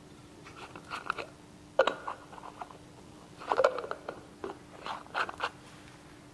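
Clear plastic oil-sample bottle handled and screwed onto a hand oil-sampling pump: several short bursts of crackling plastic and small clicks.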